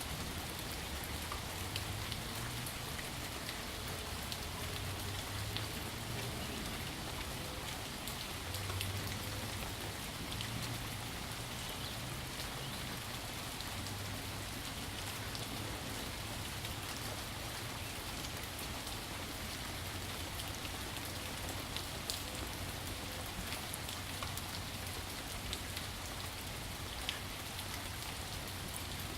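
Steady rain falling, an even hiss with scattered individual drop ticks over a constant low rumble.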